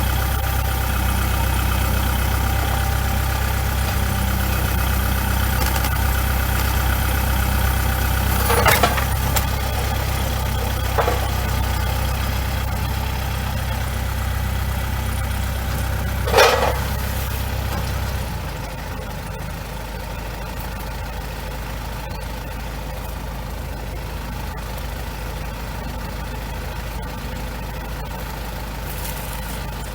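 Kubota L4701 tractor's four-cylinder diesel engine running steadily, with three short, sharp noises about nine, eleven and sixteen seconds in. About eighteen seconds in the engine sound drops lower and quieter, as if throttled back to idle.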